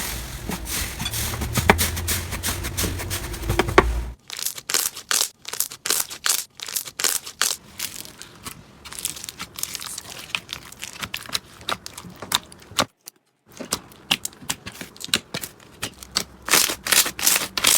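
Slime being squeezed and poked by hand, giving quick crackling, popping clicks. The sound changes abruptly about four seconds in and again around thirteen seconds.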